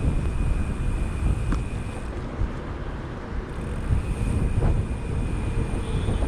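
Wind buffeting the microphone of a riding cyclist's camera: a low, uneven rumble.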